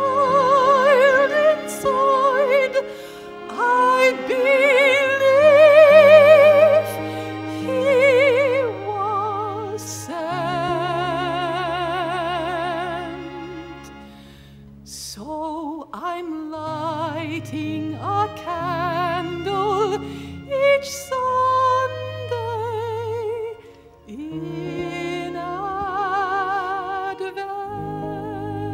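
A soprano singing a slow song in classical style with wide vibrato, over an orchestral accompaniment with long held low notes. The voice drops out briefly about halfway through, then comes back.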